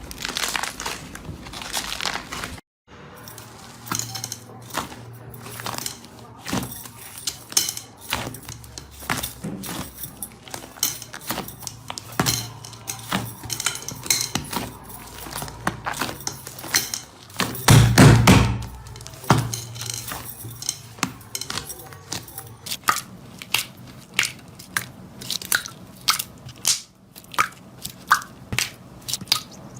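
Hands pressing, poking and stretching slime, making a dense run of sharp crackling clicks and pops. There is one louder, heavier thump a little past halfway.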